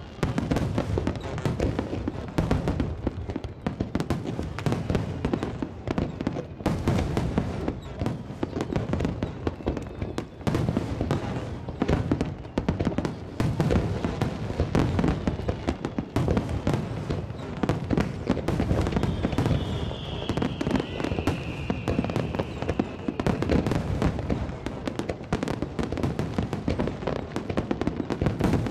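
Aerial firework shells bursting in rapid, unbroken succession in a finale barrage: dense booms and crackling throughout, with a long falling whistle about two-thirds of the way in.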